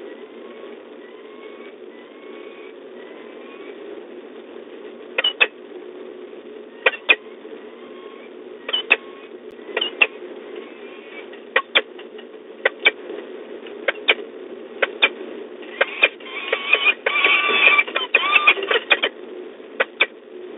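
Sharp clicks, mostly in pairs, about once a second, like a peregrine falcon's talons stepping on a metal nest grating; they crowd together near the end with some brief calling mixed in. Faint short rising chirps come in the first few seconds, over a steady background hum.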